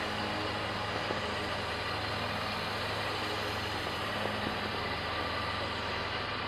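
Steady rush of wind and water on a sailboat under way, with a constant low hum underneath.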